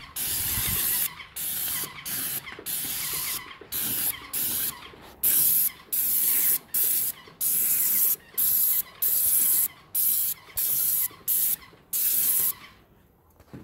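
Titan 440 airless paint sprayer's gun hissing as it sprays paint onto metal roof tiles. It goes in a quick series of short bursts, each under a second, one or two a second, that stop shortly before the end.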